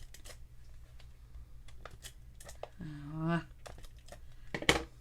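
Small craft-table handling of paper and ribbon: scattered light clicks and rustles, with a sharper click near the end. A brief hummed 'mm' from the crafter about three seconds in.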